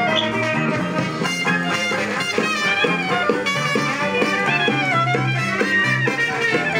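Music from a vinyl LP playing on a Pioneer PL-12D turntable, heard through the hi-fi's speakers, with a steady beat.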